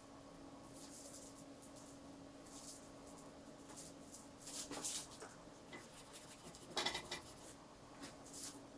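Faint scratching of a watercolour brush working on paper and palette: a handful of short strokes, the loudest about five and seven seconds in, over a faint steady hum.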